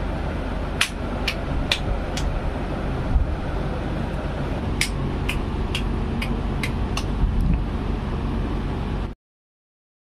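Hand claps, a few sharp claps in two bursts, over a steady loud background noise. The sound cuts off suddenly to silence near the end.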